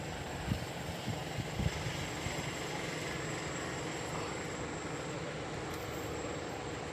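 Steady mechanical background hum, with a few short low knocks about half a second to two seconds in from hand work on the car's oxygen sensor.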